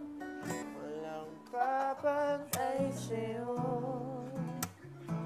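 Acoustic guitar music, plucked and strummed, with a voice singing a wavering melody through the middle.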